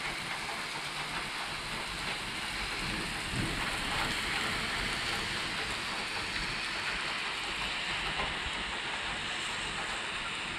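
Thunderstorm rain falling steadily on asphalt, puddles and grass, an even dense hiss.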